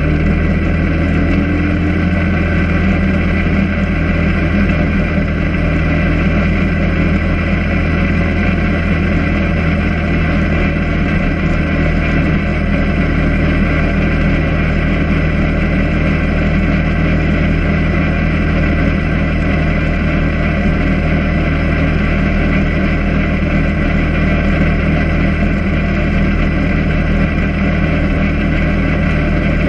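Quad (ATV) engine running steadily at an even cruising speed, with no change in revs.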